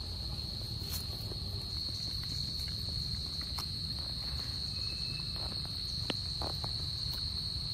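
Steady, high-pitched drone of an insect chorus, with a few faint clicks and ticks over a low rumble.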